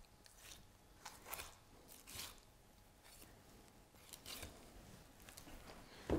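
Kitchen knife cutting and scraping along a raw guinea fowl's breastbone to free the breast meat: a few faint, short scrapes, then a short knock near the end.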